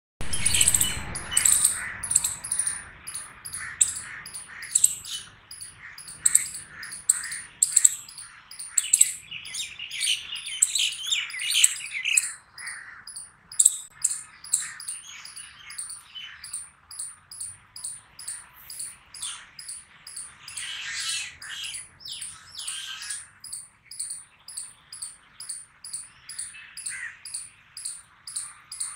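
Palm squirrels calling: shrill, sharp chirps that repeat at a steady pace of about twice a second through the second half, with busier stretches of mixed bird-like calls in between.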